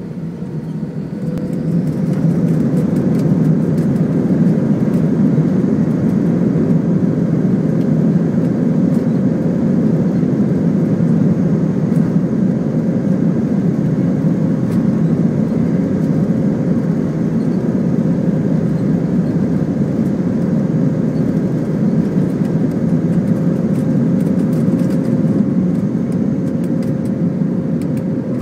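Airbus A319 taking off, heard from the cabin over the wing: the engines spool up to takeoff thrust over the first two seconds, then hold a steady loud roar with a faint high whine on top as the jet accelerates down the runway and lifts off. Scattered small clicks and knocks run through it.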